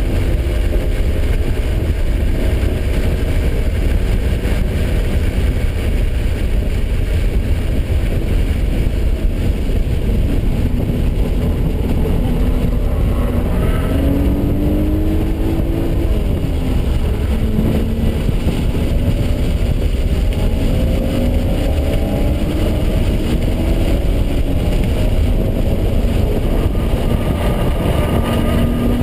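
Car engine running hard at track speed, heard from inside the cabin over a heavy low rumble of road and wind noise. Its note climbs slowly through long pulls and drops back a few times at the gear changes.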